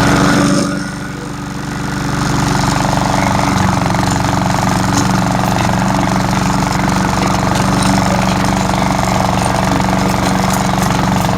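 Powermore 173cc single-cylinder OHV engine on a Cub Cadet walk-behind mower running steadily just after starting. Its level dips about a second in, then recovers and holds steady.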